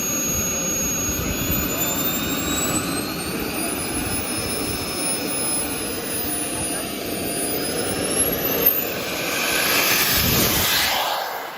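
Large RC model jet's turbine running at high power while held on its brakes: a rushing jet noise with a thin high whine that climbs in pitch over the first few seconds and then holds. Near the end the noise swells louder with pitch sweeping upward, then drops off.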